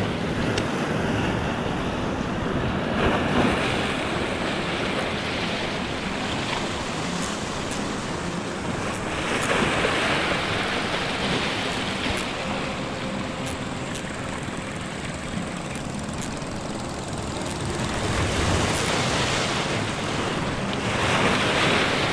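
Small sea waves washing against a rocky shore, the wash swelling and easing every several seconds, with wind buffeting the microphone.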